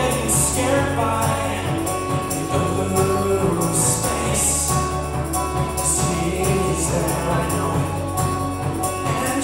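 Indie folk-pop band playing live: acoustic guitar, electric guitar, keyboards and drums over a steady low bass line, with voices singing together and bright percussion hits through it.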